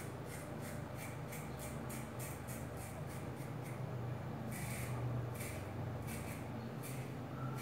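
Gillette plastic safety razor scraping through lathered day-and-a-half stubble around the lip and chin in quick short strokes, several a second, with a few longer, louder strokes about halfway through.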